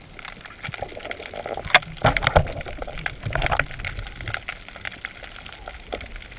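Water sloshing and gurgling around a speargun-mounted action camera near the surface, with scattered sharp clicks and knocks, the loudest about two seconds in.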